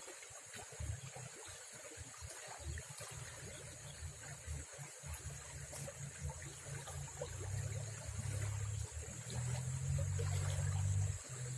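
Small stream water trickling and flowing, with an uneven low rumble that grows louder over the second half.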